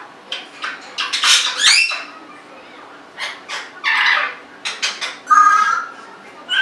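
Congo African grey parrot vocalizing: a string of sharp clicks and rasping, hissy calls, then a short whistled note about five seconds in.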